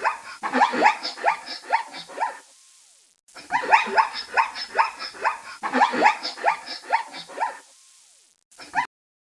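Zebra barking call: strings of quick, yelping barks, about five a second, each falling in pitch. The call comes in three phrases of a couple of seconds each, with a short burst near the end.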